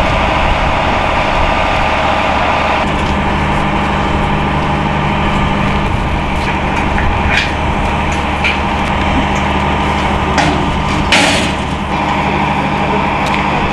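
Heavy machinery engine running steadily at the rocket's transporter-erector, with a few short knocks, the sharpest about eleven seconds in.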